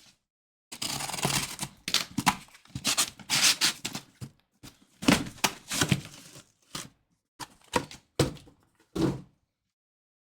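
A sealed trading-card case being opened by hand: wrapping and cardboard tearing, with crinkling and dull thunks as the boxes are handled and set down. It comes in irregular bursts and stops about a second before the end.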